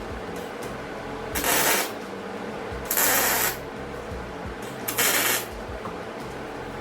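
Three short tack welds about a second and a half apart, each a half-second burst of hissing crackle, over a steady low hum.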